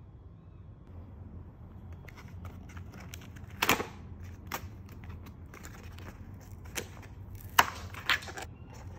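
Cardboard treat box being handled and opened by hand: scattered rustles and clicks, with one sharp crackle a little before halfway and two more near the end, over a steady low hum.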